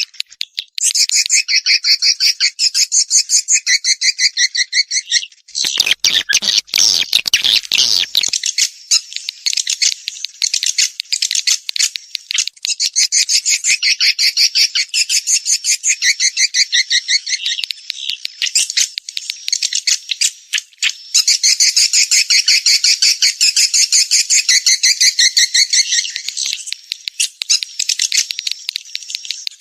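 Swiftlet calls: dense, rapid trains of high chirping twitters, a swiftlet lure call recording, with a short rougher, noisier stretch about six seconds in.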